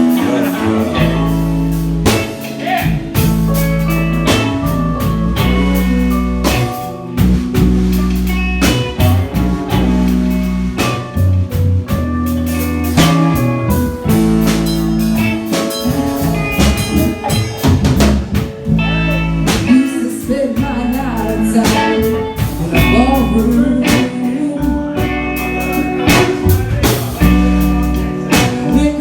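Live reggae band playing a reggae arrangement, with drum kit, electric guitar and a deep bass line.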